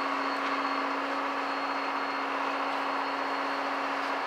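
Steady drone of an excavator's diesel engine running, with an even low hum that cuts off near the end.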